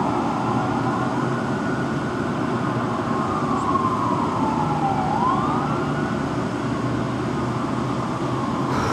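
Fire truck siren wailing: its pitch falls slowly, then sweeps back up about five seconds in, over a steady low rumble.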